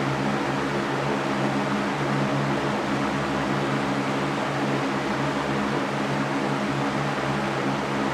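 Electric fan running steadily: an even whooshing of air over a low motor hum.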